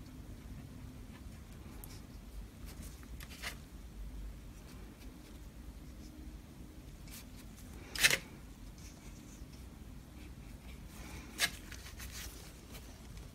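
A few sharp light taps or clicks, three of them spread out, the loudest about eight seconds in, over a faint low hum.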